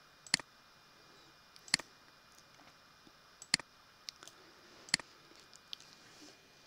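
Computer mouse buttons clicking while working through an editing program's menus: four sharp clicks spaced about a second and a half apart, with a few fainter ticks between them.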